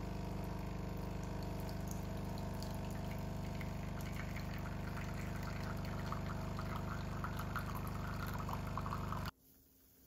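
Automatic coffee machine's pump humming steadily while two streams of coffee run into a porcelain cup, with a light splashing patter that grows stronger in the second half. The sound stops abruptly about nine seconds in.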